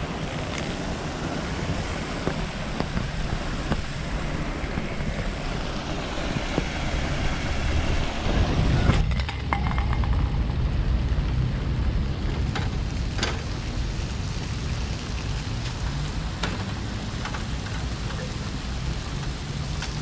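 Wind buffeting the microphone over a steady low traffic rumble, swelling about eight to nine seconds in, with a few faint clicks later.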